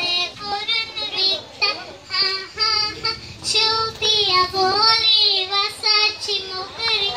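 A young girl singing solo into a stage microphone, a high child's voice carrying a melody in short phrases, with some held notes that waver, the longest about four to five seconds in.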